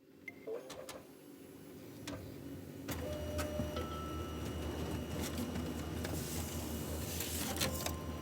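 Xerox multifunction printer working: a few sharp mechanical clicks, then about three seconds in its motors start and run with a steady low hum, with short whines and more clicks near the end.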